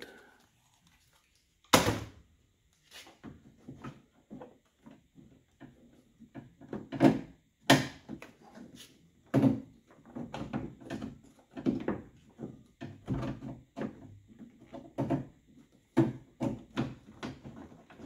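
Plastic keypad door handle being pushed and wiggled into the door skin of a 2009–2014 Ford F-150: a run of irregular clicks, knocks and rattles against the sheet metal as its retaining tabs are worked behind the metal. It starts with a sharp knock near two seconds in, and the loudest two knocks come close together about halfway through.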